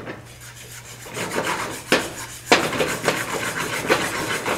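Wire whisk scraping and stirring around a pan through a thick butter-and-flour roux, working out the lumps. Quick repeated scraping strokes start about a second in, with a couple of sharper knocks against the pan near the middle.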